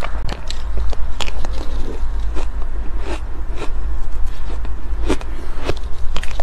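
Close-miked crunching of soft, powdery ice being chewed, a quick irregular series of sharp crunches, with a metal spoon scraping through the ice in the bowl.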